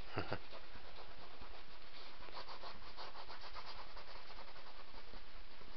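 Paintbrush scrubbing acrylic paint onto a stretched canvas, a scratchy rubbing in quick repeated strokes.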